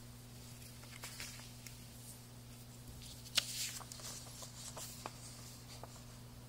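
Glossy paper flyer being handled and turned over: light rustles and crinkles, with a sharper crackle about halfway through, over a faint steady hum.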